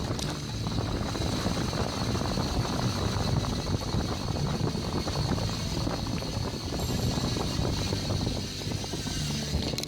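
Wind rumbling on the microphone of a camera mounted on a moving mountain bike, mixed with tyre and drivetrain noise, with a steady high whine running underneath.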